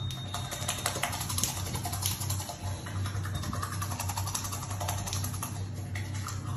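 Toothbrush scrubbing teeth: quick, irregular, scratchy strokes of the bristles, with a steady low hum underneath.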